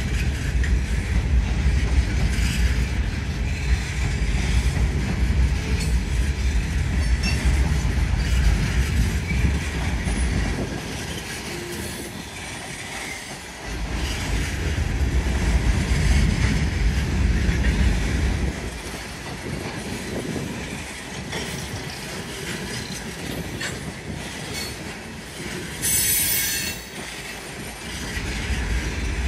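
Empty coal hopper cars of a Norfolk Southern unit coal train rolling past, the wheels giving a heavy low rumble that eases off twice for several seconds. A brief loud, high-pitched noise comes near the end.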